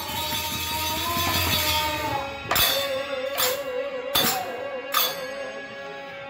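A kirtan ensemble playing: barrel-shaped khol drums struck by hand and small hand cymbals clashing in a steady shimmer, with a held, wavering melody note over them. Four strong drum strokes fall in the second half, a little under a second apart.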